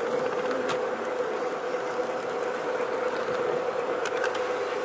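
G-scale garden railway train running with a steady electric-motor and gear hum, with a few light clicks.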